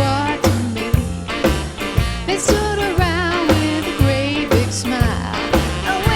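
Background music: an upbeat rock-and-roll song with a steady beat.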